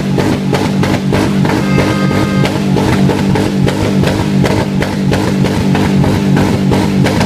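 Loud rock music with electric guitar and a steady drum-kit beat.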